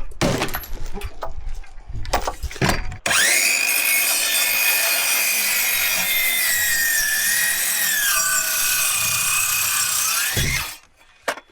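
A few knocks, then a handheld circular saw (Skilsaw) starts about three seconds in and cuts through a wooden board. Its steady whine drops in pitch as the blade loads up in the cut and rises again just before the saw stops.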